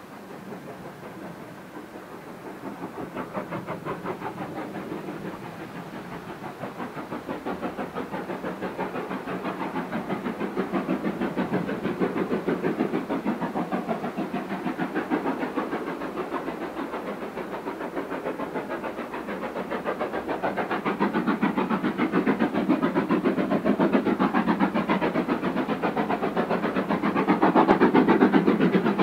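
GWR Modified Hall No. 6989 'Wightwick Hall', a two-cylinder 4-6-0 steam locomotive, working a train with a steady rapid beat of exhaust chuffs that grows steadily louder as it approaches.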